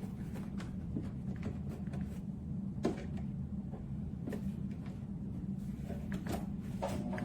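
Sewing machine being handled: a steady low hum with a few scattered sharp clicks and knocks, like levers and parts being moved.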